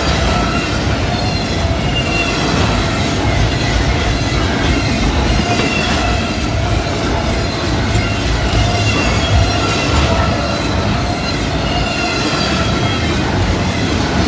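Double-stack intermodal freight cars rolling past at speed: a steady rumble and clatter of steel wheels on rail, with faint high wheel squeal coming and going.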